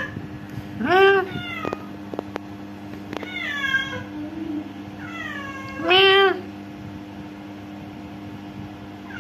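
Domestic cat meowing repeatedly: several short, arching calls, the loudest about a second in and again about six seconds in, with softer calls between, over a steady low hum.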